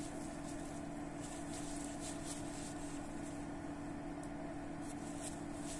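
A steady low electrical hum, with faint, brief rustles of a paper towel as a small aluminium carburetor cover is wiped and handled.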